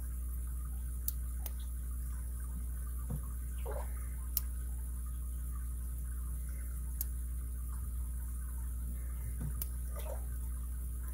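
Sparse faint clicks and short scrapes of a lock pick working the pin stack of a five-pin Master Lock M15 padlock under tension, over a steady low hum.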